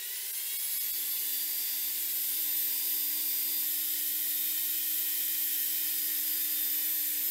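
Benchtop bandsaw motor and blade spinning up over the first second or two, then running steadily with a constant hum and high whine, as a metal hex nut is pushed into the blade to notch it.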